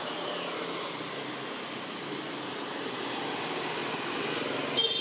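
A steady low rumble like passing traffic, with one brief high squeak near the end from a baby long-tailed macaque.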